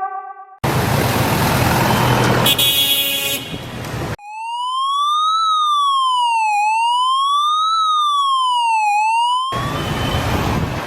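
Emergency-vehicle siren wailing, a clean electronic tone that rises and falls slowly about twice. Before it comes a loud, noisy blast with a horn-like tone in it, and a similar noisy burst returns near the end.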